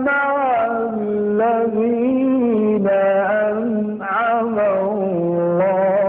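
A man reciting the Quran in the melodic mujawwad style: one voice holding long, ornamented notes that waver in pitch, with short pauses between phrases about one, three and four seconds in.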